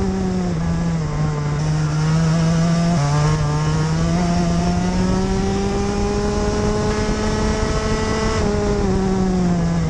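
Rotax Max Evo 125cc single-cylinder two-stroke kart engine at racing speed. The revs fall away about a second in, then climb steadily from about three seconds in down a straight, and drop again near the end.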